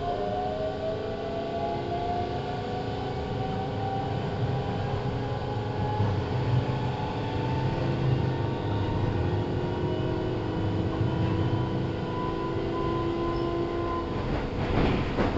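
Keihan 3000 series electric train heard from inside the car, accelerating: the VVVF inverter and traction-motor whine climbs steadily in pitch over the rumble of the wheels. Near the end the wheels clatter over the track.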